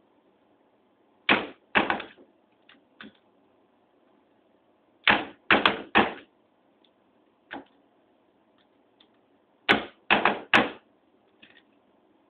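Bump key being struck into a Sargent six-pin mortise lock cylinder: sharp metallic knocks in three clusters of two to four blows, with a few faint taps between.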